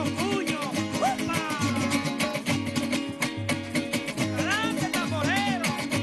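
Golpe tocuyano being played: small Venezuelan guitars strummed in a fast, driving rhythm over a steady low pulse. A voice slides up and down over it near the start and again in the second half.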